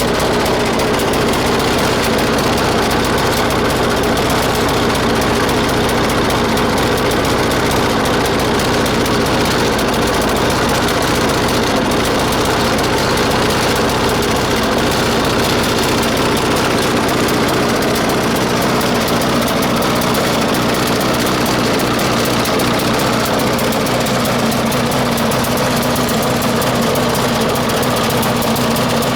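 Murray push mower's 4 HP Briggs & Stratton single-cylinder engine running steadily at a raised idle, a little uneven. The owner says it is not getting enough fuel, so it runs lean.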